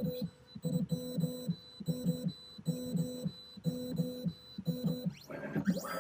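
Computerised high-security key machine tracing a key to read its existing cuts: its motors hum in short pulses about once a second. Near the end comes a longer run with a whine that slides in pitch.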